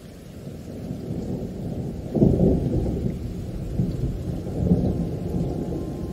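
A deep rumbling noise that builds, with a loud surge about two seconds in, then carries on unevenly.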